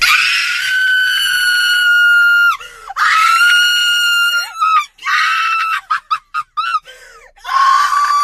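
A young woman screaming in high-pitched excitement. There are two long held screams, then shorter squeals and cries, and another held scream near the end.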